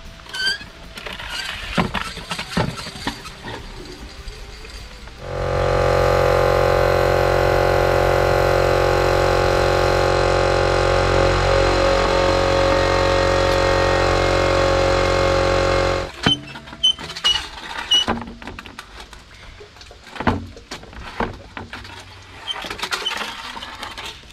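A small 24-litre air compressor's motor kicks in about five seconds in, runs steadily with a loud even hum, and cuts out about eleven seconds later, refilling its tank as compressed air is drawn off to flush the well bailer. Scattered knocks and clatter come before and after it.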